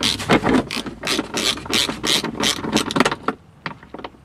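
Ratchet wrench clicking in quick bursts, about four a second, as a fastener on the car's heater unit is backed out; the clicking stops a little over three seconds in.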